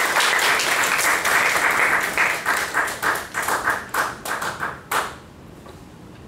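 Audience applause that thins out into a few scattered single claps, ending with a last clap about five seconds in.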